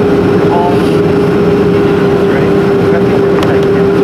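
Boeing 737-400 cabin noise while taxiing, with its CFM56-3 engines running steadily at low power: a constant loud drone carrying one steady mid-pitched tone.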